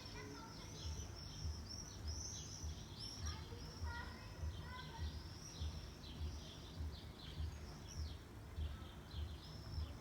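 Many small birds chirping together, with short high chirps overlapping all the way through. Underneath runs a faint low thump that repeats about twice a second.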